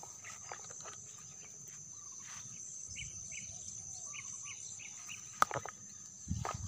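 Steady high-pitched chirring of insects, with a bird calling a quick series of short notes about three to four seconds in. A sharp click comes about five and a half seconds in, and footsteps rustle through grass near the end.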